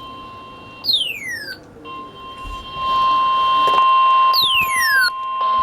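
Weather-radio alert tones: a steady high tone that drops out briefly about a second in and then resumes, the attention tone that comes before a warning message. Over it come two falling electronic chirps, about three and a half seconds apart.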